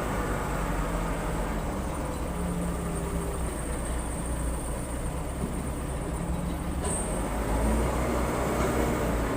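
Diesel engine of a Case 580 Super L backhoe loader running steadily under work, its pitch shifting a little as the hydraulics take load, with a faint high whine above it.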